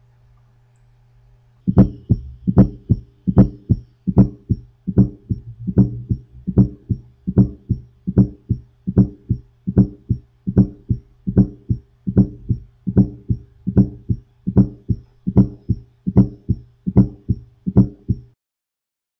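Recorded heart sounds, as heard through a stethoscope: an even, regular train of low beats that starts about two seconds in and stops just before the end, with a steady low hum running between the beats.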